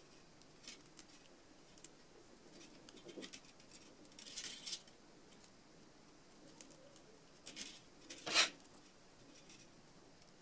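Faint handling noise of beaded sepals and fine wire being wrapped onto a beaded rose: scattered small clicks with a few short scratchy rustles, the loudest near the end.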